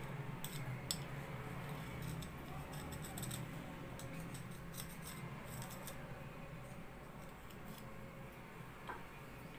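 Light clicks and scrapes of a tester screwdriver working against an LED bulb's housing as an LED chip is seated inside. The clicks thin out in the second half, over a steady low hum.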